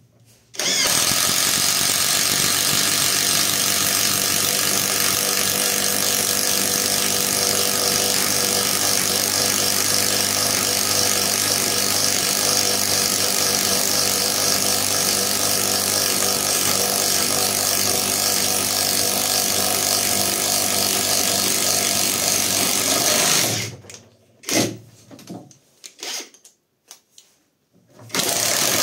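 Catpower 4226 cordless impact driver boring into a wooden beam with a 35 mm self-cut wood bit. It runs steadily under load for about 23 seconds, then stops, followed by a few short bursts near the end.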